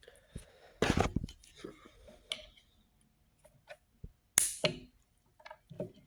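Hand work on electric skateboard wiring: scattered sharp clicks, crunches and rustles, the loudest about a second in and again about four and a half seconds in.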